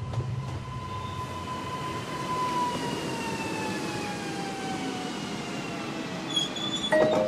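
Regional passenger train running past, a rushing rumble with a whine that slowly falls in pitch over several seconds. Near the end, chiming mallet-percussion music comes in.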